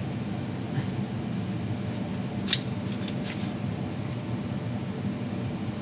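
Steady low mechanical hum of room noise, with one sharp click about two and a half seconds in and two fainter ticks just after.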